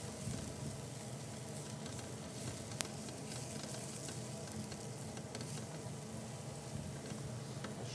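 Crushed garlic sizzling steadily in a little oil in a nonstick frying pan, stirred with a spatula; it is being softened, not browned. A single sharp tick about three seconds in.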